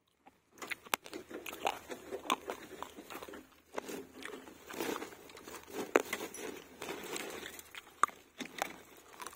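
A woven plastic seed sack rustling and crinkling as it is handled, with scattered sharp clicks; the loudest come at about 6 and 8 seconds in.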